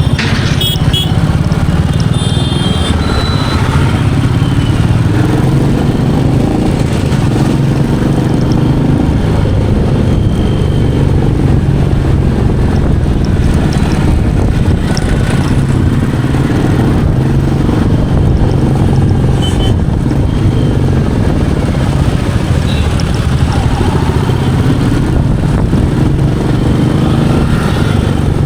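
Royal Enfield Meteor 350's 349 cc single-cylinder engine running under way, its pitch rising and falling with the throttle. A few brief high beeps sound about a second to three seconds in.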